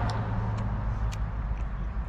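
Low rumble of a motor vehicle engine that fades and then holds steady, with a few faint clicks over it.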